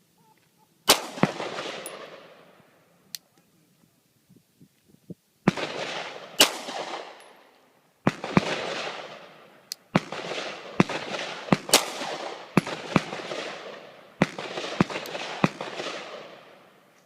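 Glock 19 9mm pistol firing a string of about fifteen shots, at first spaced a few seconds apart, then faster with some quick pairs, each shot followed by a long echoing tail.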